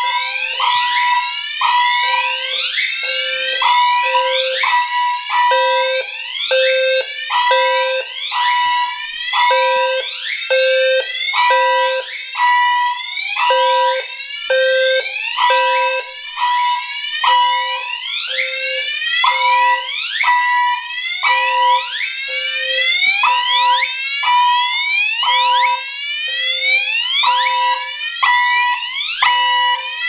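Two fire alarm sounders going off together. A Gentex Commander 3 horn on whoop tone gives rapidly repeated rising sweeps. A System Sensor P2WL-LF low-frequency sounder pulses a low tone in the temporal-3 pattern: three beeps, then a pause, over and over.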